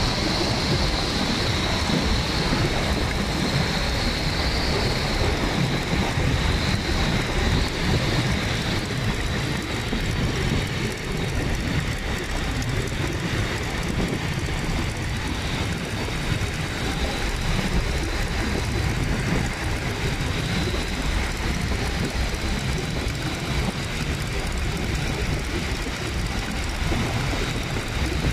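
Boeing Stearman biplane in steady cruise flight, heard from its open cockpit: the radial engine and propeller running evenly under heavy wind rush, with a faint high whine held throughout.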